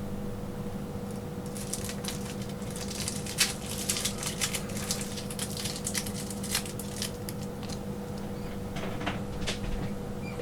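Quick irregular clicks, taps and scrapes of hand work on a small device, most likely tools and fingers on an Apple Watch during a glass and digitizer replacement, over a steady low electrical hum.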